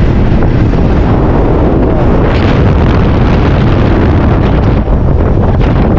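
Loud, steady wind rush buffeting the microphone of a camera on a moving motorcycle, mixed with the motorcycle's running.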